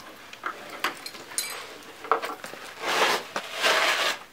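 Plastic spine board being laid down on a carpeted floor: a few clicks and clatters of its strap buckles, then two loud stretches of scraping and rustling as the board and straps are slid into place.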